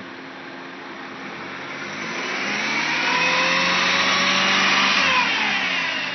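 2004 Chrysler Sebring four-cylinder engine revved in neutral, rising and held for a couple of seconds, then dropping back near the end. A loud high whine climbs and falls in pitch with the revs; the owner takes it for a transmission fault.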